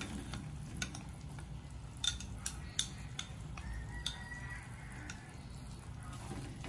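Fried king oyster mushroom pieces tipped from a ceramic bowl into a metal wok of sauce, with scattered light clinks and taps of the bowl and wooden chopsticks against the wok over a low steady hum.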